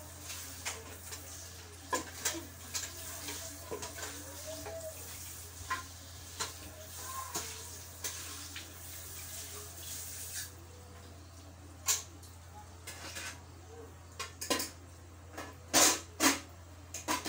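Dishes and cutlery clinking and knocking off and on, with two louder knocks near the end.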